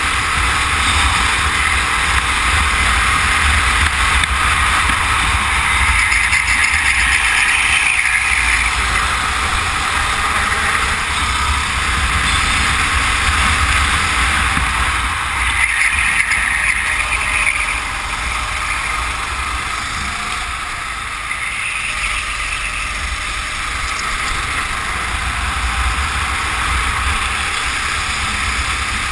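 Racing go-kart engine running hard at speed, its note swelling a few times, over a low rumble of wind on the microphone.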